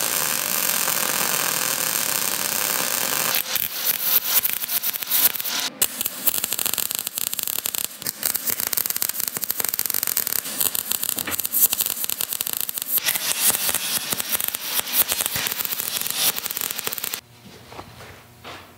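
MIG welding arc on steel tubing. A steady hiss gives way after a few seconds to a crackling sizzle in short runs, and it stops near the end.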